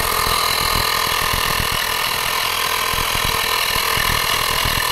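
GoMechanics portable tyre inflator, a car-powered air compressor, running very loud and steady with a fast low pulsing. It is pumping a car tyre up from about 30.5 PSI toward its set cut-off of 35 PSI.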